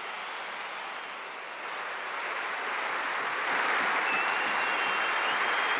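Large football stadium crowd applauding. The applause swells louder about two seconds in and again just past halfway.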